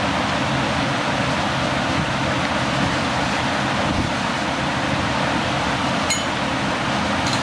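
Steady machine-shop noise, a continuous hum and hiss, with two light metal clicks near the end as a rotor housing is tightened down in a milling-machine jig.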